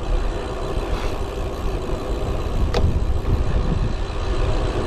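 Wind buffeting a bicycle-mounted action camera's microphone while riding, a steady rumbling rush, with one sharp click a little over halfway through.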